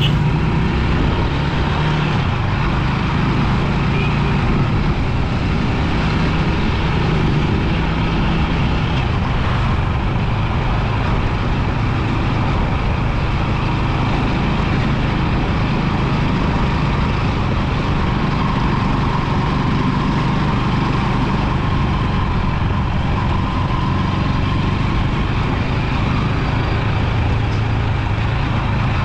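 Rusi 250 motorbike engine running steadily at cruising speed, with a steady rush of wind and road noise.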